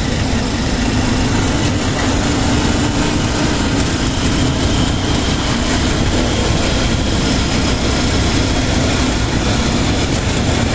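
Engine of a moving open-sided vehicle running steadily, its drone dipping a little past the middle and rising again near the end, under a constant rush of wind and road noise.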